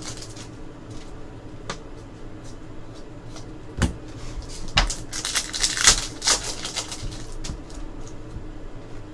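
Trading card pack wrappers crinkling and tearing open, with rustles and a few sharp clicks as the cards are handled; the loudest crinkling comes about five to six seconds in.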